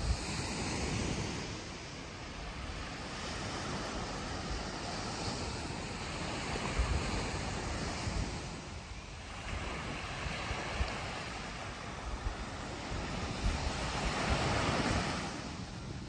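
Small waves breaking and washing up a sandy beach, the surf swelling and fading every few seconds, with wind buffeting the microphone.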